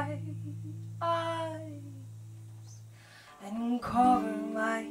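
A woman singing long, drawn-out notes to her own acoustic guitar, whose low chord rings on under the voice; a new chord comes in about three and a half seconds in.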